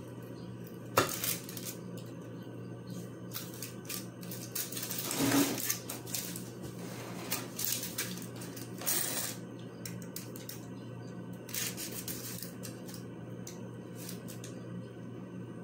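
Metal spoon scraping, clinking and tapping as frosting is spread over a cake on a foil-covered plate. A sharp clink about a second in, longer scraping rustles around the middle, and a steady low hum underneath.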